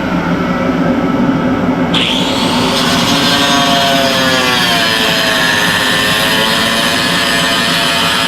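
Power tool with a cutoff wheel grinding into fiberglass tabbing on a boat hull. Its whine dips and rises as the wheel bites, and a harsher, high-pitched cutting sound starts abruptly about two seconds in.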